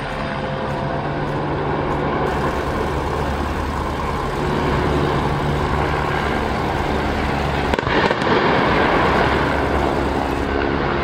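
Helicopter rotor drone overhead under a broad outdoor rumble as a replica steam locomotive rolls off a bridge and drops into a quarry. About eight seconds in comes a sudden crash of the locomotive hitting the quarry floor, followed by a couple of seconds of louder rumbling noise.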